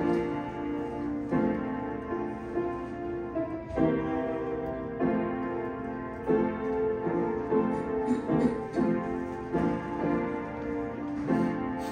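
Solo piano playing slow, sustained chords that change every second or so.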